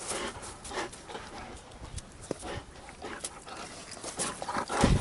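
A dog tugging and worrying at a rag in tug-of-war, making short vocal sounds, with scuffling and knocks, and a louder low thump at the very end.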